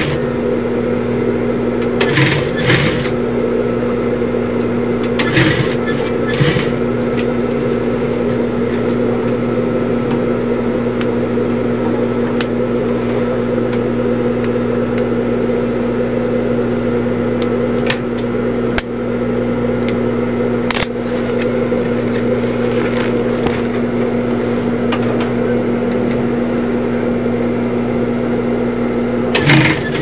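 Industrial sewing machine's motor running with a steady hum, with a few brief clicks and knocks at scattered moments as the bag is handled at the machine.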